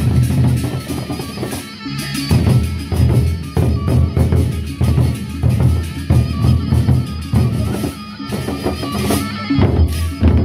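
Gendang beleq ensemble playing: large Sasak double-headed barrel drums beaten with sticks in rapid interlocking strokes, with cymbals clashing above the drums.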